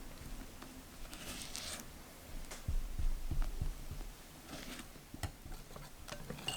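Kitchen handling noises: two brief scrapes, and a run of several soft, dull taps near the middle.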